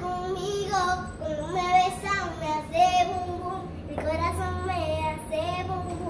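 A child's voice singing a melodic line of held, gliding notes without clear words.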